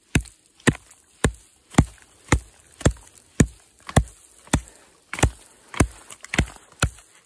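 Axe chopping into frozen, icy snow around a buried moose antler to free it: about thirteen sharp, evenly spaced strikes, roughly two a second.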